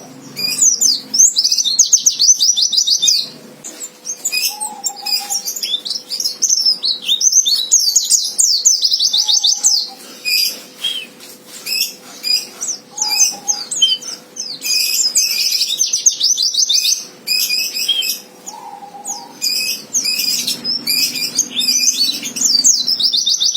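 White-eye (pleci) singing its fighter song: fast, high trilled phrases in bursts of a second or two, one after another with short gaps. This is a challenge song used to provoke rival white-eyes into singing back.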